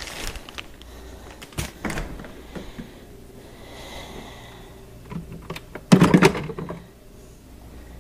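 Kitchen handling noises: a refrigerator door is opened and bottles are taken from its door shelves, with scattered clicks and knocks and a loud clatter about six seconds in.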